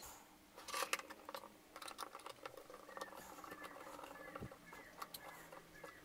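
Faint clicks and scratches of hands handling a small plastic smart-switch housing and its wire ends while connecting the cable, with a cluster of clicks about a second in.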